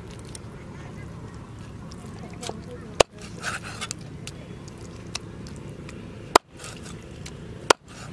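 Cleaver chopping raw chicken on a wooden chopping board: three sharp chops, the last two closer together, with small knocks and clicks from handling the pieces between them.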